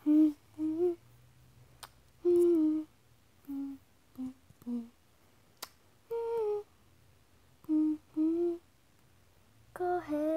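A young girl singing wordless short notes, unaccompanied, in little groups of two or three with pauses between.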